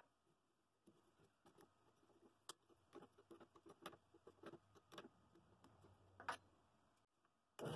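Near silence with faint, scattered clicks and taps of hands handling a sandpaper sleeve on a drill press sanding drum. A steady, much louder noise cuts in suddenly right at the end.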